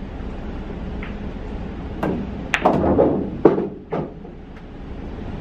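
Pool balls clacking together several times, in a quick cluster about halfway through.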